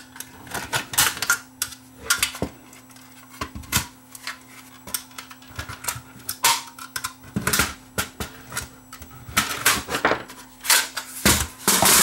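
A small screwdriver prying at the snap-fit tabs of a 3Com ADSL modem's metal-and-plastic case, giving irregular clicks, scrapes and snaps. They come thicker and louder near the end as the case comes apart.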